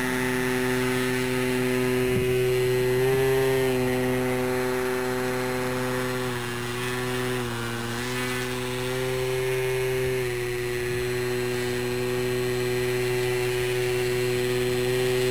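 Motor and propeller of a foam RC model plane holding a prop hang: a steady buzzing drone that rises slightly in pitch about three seconds in and dips a few times between six and eight seconds in as the throttle is worked to hold the hover.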